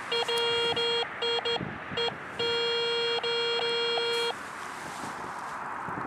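Metal detector's buzzy target tone, set off by a stone suspected of being a meteorite passed over the search coil: several short broken signals in the first two seconds, then a steady tone held for about two seconds that stops just past four seconds in.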